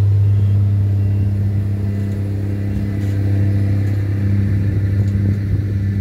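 HBM motor grader's diesel engine running at a steady pitch as the machine grades a dirt road.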